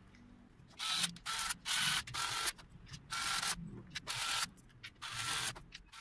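Electric screwdriver driving the long fan screws into an AIO radiator, whirring in about seven short bursts with pauses between.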